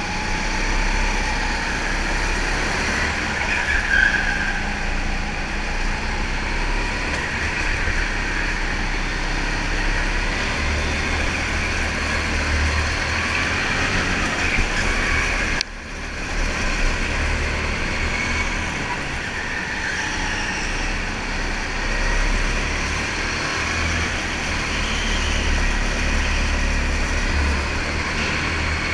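Indoor go-kart running at speed on track, heard from the driver's seat: a continuous, steady mechanical running noise with a low rumble underneath. The sound drops out briefly about halfway through.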